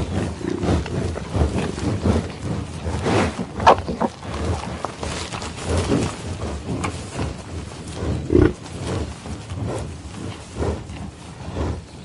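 Irregular animal growls and grunts, with louder calls about a third of the way in and again past the middle.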